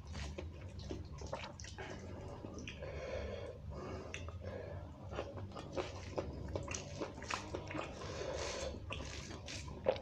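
Wet, sticky squishing of rice and beef curry being mixed by hand, with chewing. Irregular short clicks and smacks throughout.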